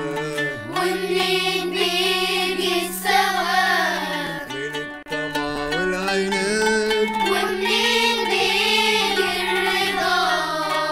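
Children's choir singing a slow melody in unison over an instrumental backing.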